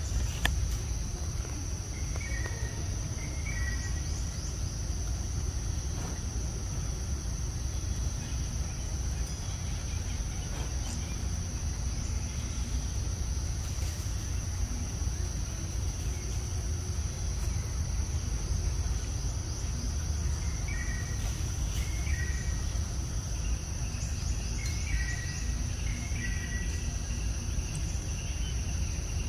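Outdoor ambience: a steady high insect drone over a constant low rumble, with short bird chirps about two seconds in and again several times in the last third.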